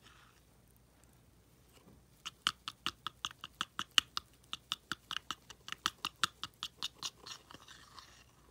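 Small wire whisk beating a runny metallic highlighter mix in a bowl: a quick, even run of wet clicks, about six a second, starting a couple of seconds in, then easing into a softer swishing near the end.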